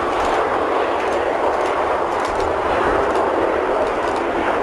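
Airbus A330-200 airliner's jet engines and airflow making a loud, steady rushing noise with a low rumble beneath, as the plane touches down and rolls out on the runway.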